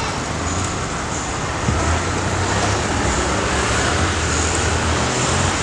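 Street traffic noise: a steady wash of passing road vehicles, with a low engine rumble that swells a little after about two seconds.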